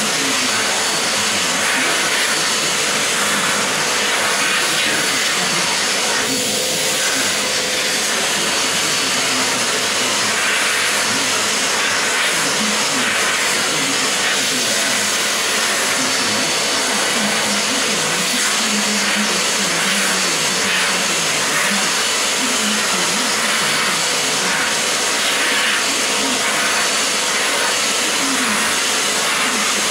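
Vacuum cleaner running steadily as it is drawn over a long-haired cat's fur, the suction noise shifting slightly now and then as the nozzle moves.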